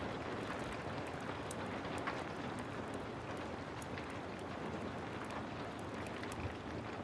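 Heavy rain falling steadily, with a wood fire crackling over it: scattered sharp pops and ticks over the rain's even hiss.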